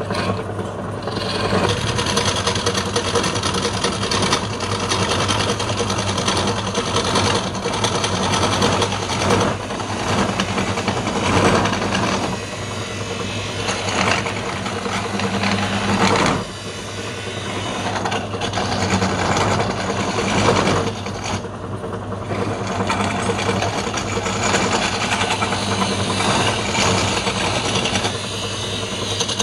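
Belt-driven wood lathe running with a steady hum while a long gouge cuts into a spinning wooden platter. The cut is a hissing, scraping noise that rises and falls as the tool is worked across the face, easing off briefly a couple of times.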